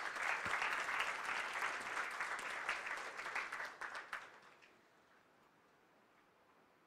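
Audience applauding, a dense patter of many hands clapping. It dies away about four and a half seconds in, leaving quiet room tone.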